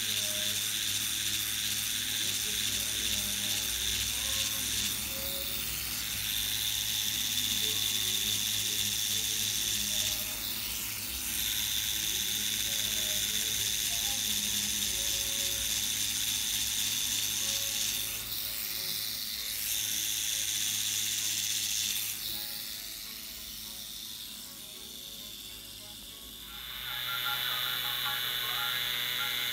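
Cartridge tattoo machine buzzing steadily as the needle packs colour into skin, dipping briefly a few times. Near the end it gives way to a different, steadier machine hum.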